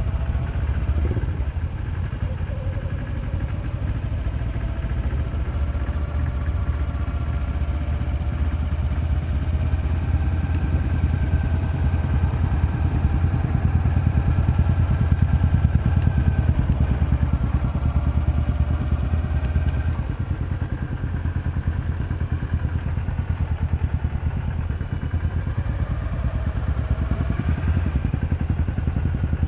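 Motorcycle engines running, picked up by a handlebar-mounted action camera's built-in microphone: a heavy, steady low rumble, with engine notes rising and falling as revs change.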